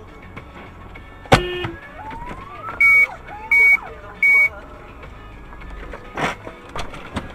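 A sharp knock, then three loud short electronic-sounding beeps about two-thirds of a second apart, each on one high tone, over faint gliding tones; a few clicks near the end.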